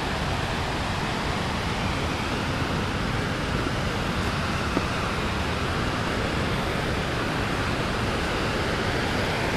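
Waterfall rushing, a steady, even sound of falling water.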